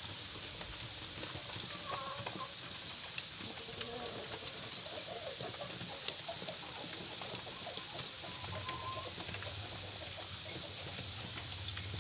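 A pen packed with farmed field crickets chirping together in a continuous, high-pitched chorus.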